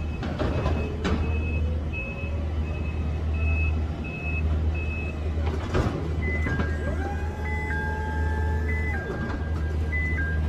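Toyota forklift reversing: its backup alarm beeps a bit faster than once a second over the low hum of an engine. About halfway through there is a knock, and the warning changes to an alternating two-note electronic tune.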